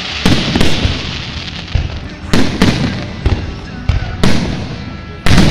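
Aerial fireworks shells bursting in quick succession in a finale barrage: about eight sharp booms at uneven spacing over continuous crackling and hissing, the loudest near the end.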